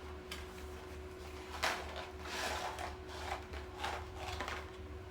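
Paper and cardboard fast-food packaging handled and rustled, with a few sharp clicks and taps, as fries are moved between containers, over a faint steady hum.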